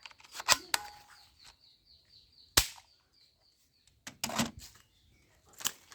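Plastic toy guns clicking and snapping as they are handled: four sharp clicks, the loudest about two and a half seconds in, with a faint rapid ticking between the first two.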